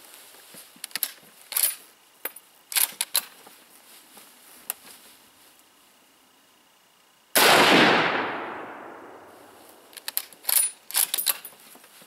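Mosin-Nagant 91/30 bolt-action rifle in 7.62×54R firing a single shot about seven seconds in: a loud crack with a long fading echo. Before and after it come quick clusters of sharp metallic clacks from the bolt being worked.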